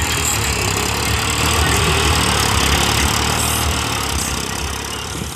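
New Holland 3630 tractor's three-cylinder diesel engine running steadily under load as it drags a land leveller through loose soil, fading off near the end.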